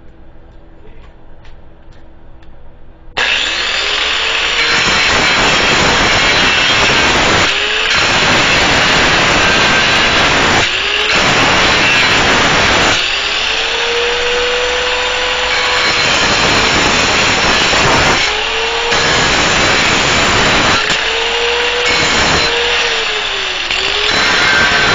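Drillmaster 4-1/2 in. 4.3 amp angle grinder switched on about three seconds in, grinding a damaged bolt head round. A loud, harsh grinding hiss runs over the motor's whine, which dips and picks back up several times as the wheel bears on and eases off the bolt.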